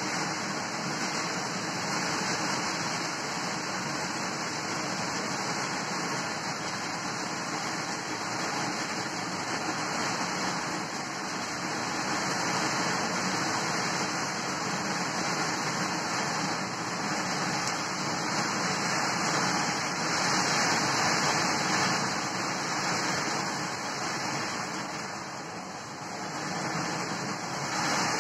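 Heavy storm downpour: a steady rushing of rain that swells louder twice and eases briefly near the end.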